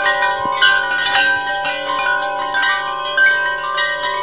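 Wind chimes ringing: many overlapping metal tones, fresh notes struck every fraction of a second and left to ring.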